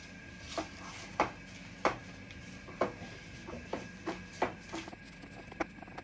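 Scattered soft taps and crackles of baking paper and pastry as puff pastry is pressed by hand into a tart dish, about one every second, over a faint steady hum.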